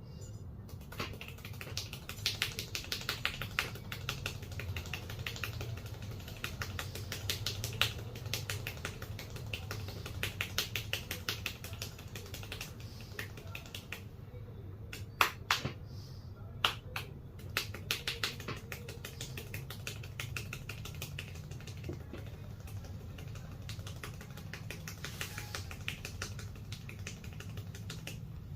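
A barber's hands striking a head in quick percussive massage strokes: rapid runs of sharp clicking taps, broken by short pauses.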